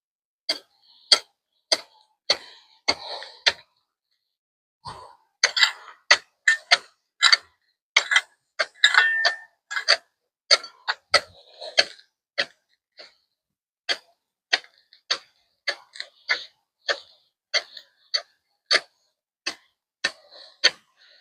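Garden rake being worked through soil, its tines scraping and clicking on the ground in quick repeated strokes about twice a second.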